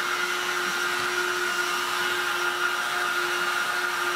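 Handheld hot-air gun with a narrow nozzle tip running steadily: a rush of air over a constant motor hum. It is heating a plastic test piece until the plastic softens.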